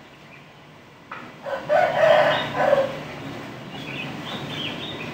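A single loud, drawn-out animal call of about two seconds, starting about a second in, followed by fainter, higher calls near the end.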